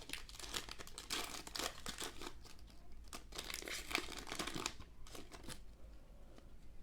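A trading card pack wrapper being torn open and crinkled in the hands, a run of crackling and tearing that dies down near the end.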